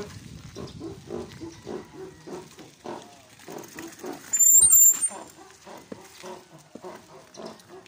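Bicycle brakes squeal sharply for about half a second, midway through, as the mountain bike pulls up to a stop. Under it runs a steady stream of short low pitched pulses, about two to three a second.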